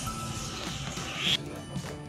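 Quiet background music with faint steady tones. A short hissing swish swells and cuts off suddenly about a second and a half in.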